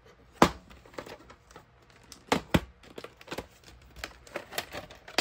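A plastic VHS clamshell case being handled and opened, giving a series of clicks and knocks. There is a sharp click about half a second in, two louder snaps a little after two seconds, then a run of smaller clicks as the lid is opened and the cassette is handled.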